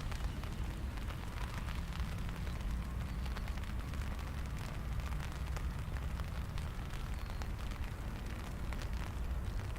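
Rain pattering as many light, irregular ticks over a steady low rumble.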